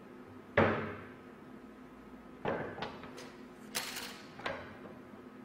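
Walnut boards knocking on a steel saw table as they are set down and moved: one sharp knock about half a second in, then several lighter knocks and a brief scrape a little past the middle.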